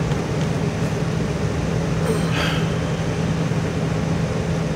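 A steady mechanical hum with a constant low tone and a noise haze underneath, unchanging throughout.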